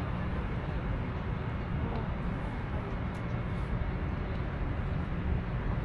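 Steady low rumbling outdoor background noise, even throughout with no distinct events.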